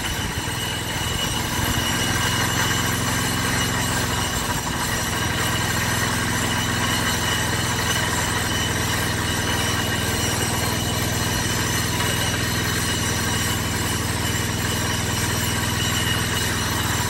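An engine running steadily at a constant idle, its hum and whine unchanged throughout.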